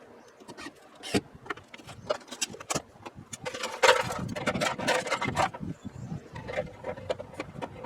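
A wooden panel being handled and worked into place: scattered knocks and clicks, with a denser stretch of scraping and rubbing in the middle.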